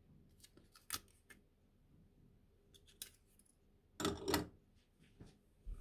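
Dry bay leaves being handled and laid in a pan of pork and water: a few light clicks and crackles, with a louder rustling crackle about four seconds in.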